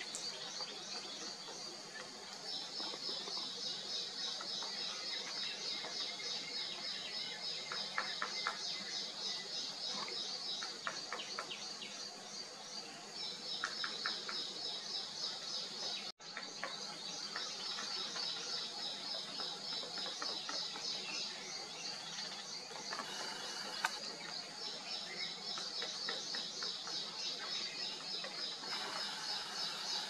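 Steady, fast-pulsing chorus of insects, with a few short runs of rapid clicks. The sound drops out for an instant about halfway through.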